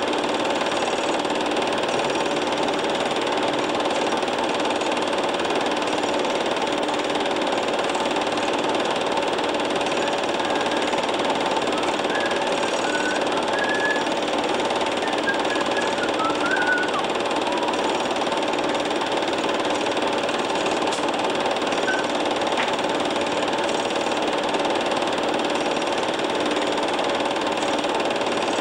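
A machine running steadily with an even whirring, knocking hum that does not change in pitch or level.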